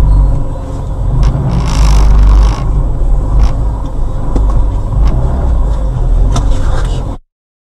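Loud, steady low rumble of a car heard from inside the cabin through a dashcam microphone, with a few sharp clicks and knocks and a brief hissing stretch about two seconds in; the sound cuts off suddenly near the end.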